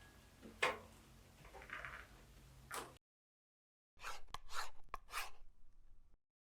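Soft handling noises of CPAP parts, such as the plastic heated hose and the machine being moved and set down: a few light knocks and rustles, then a quicker run of clicks and rustles. The sound cuts to dead silence twice.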